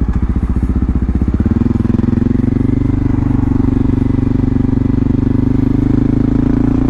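Honda XR650L's single-cylinder four-stroke engine running as the motorcycle rides slowly, with an even, rapid pulsing exhaust note.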